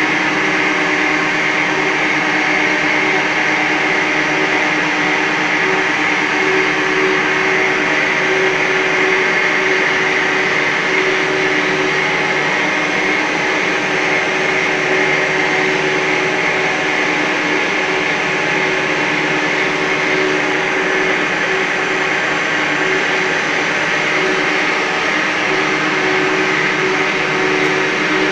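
Plastic recycling 'mother baby' extrusion line running steadily: a constant loud machine drone of motors and drives with a steady hum and a higher whine over it.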